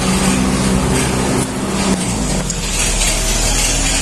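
Steady hum of a vehicle engine running, then from about halfway a low rumble as the phone is handled close to its microphone.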